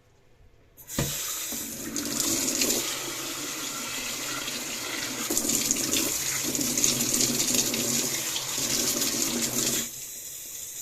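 Kitchen tap running water into the sink, starting about a second in with a short knock and running steadily until it drops off near the end.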